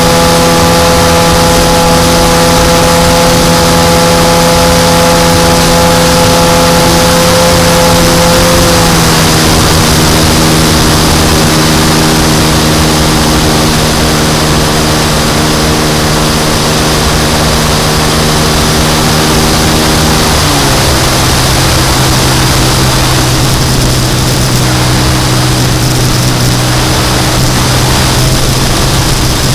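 Onboard sound of a radio-controlled model airplane's engine running steadily in flight, with a rush of wind over the camera. Its pitch steps down twice, about nine seconds in and again about twenty seconds in.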